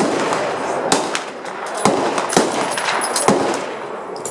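Rifle shots from several rifles along a firing line: about five sharp cracks at uneven spacing, roughly a second apart, with fainter, more distant shots between them.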